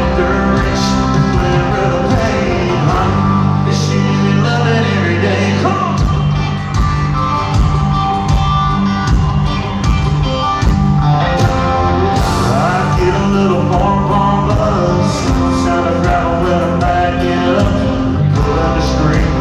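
Live country band music with a lead singer, amplified through an arena sound system and recorded from the stands, so it sounds loud and echoing.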